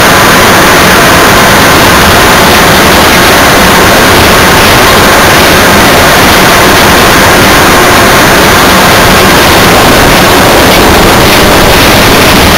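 Cab of a Mount Washington Cog Railway steam locomotive on the move: a steady, dense rushing noise, loud enough to overload the recording throughout.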